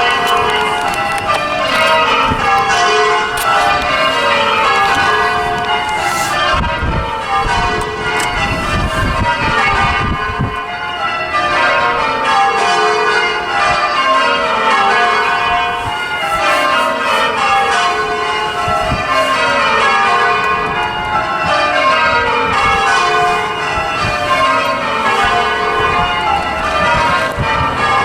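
Church bells being change-rung by full-circle ringing. Each round of bells strikes in a quick falling sequence, repeating about every two seconds.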